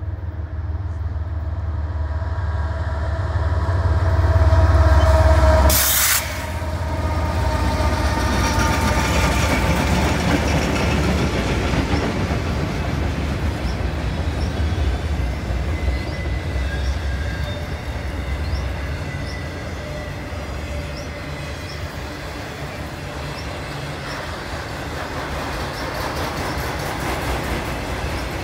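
CN freight train passing close by: the diesel locomotives' low rumble builds to a peak about five seconds in and drops off sharply around six seconds. After that comes the steady rolling and rattling of autorack cars, with light wheel clicks.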